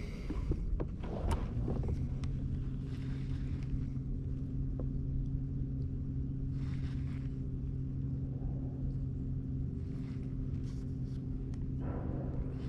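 Kayak's electric trolling motor switching on about a second and a half in and then running with a steady hum, after a few handling knocks and clicks.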